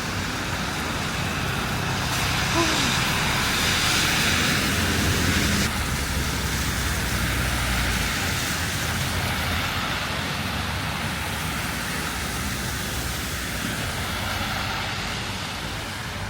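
City street traffic noise: a steady wash of passing vehicles, with one vehicle passing close and loudest a few seconds in, its rumble fading by about halfway.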